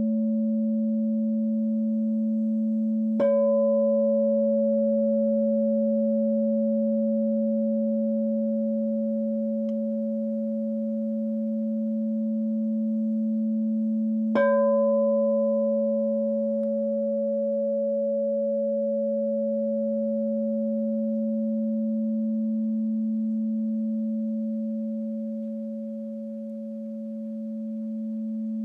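Crystal singing bowl tuned to A ringing with a steady, pure low tone, struck lightly with a mallet about three seconds in and again around fourteen seconds, each strike adding a brief bright ping over the hum. The tone swells and fades slowly near the end.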